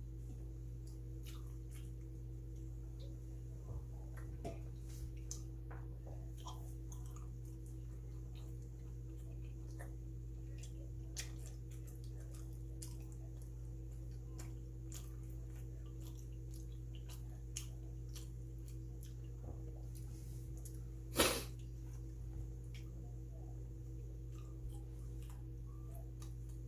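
Faint, scattered mouth clicks of someone chewing bungeoppang (fish-shaped pastry), over a steady low hum, with one sharper click about 21 seconds in.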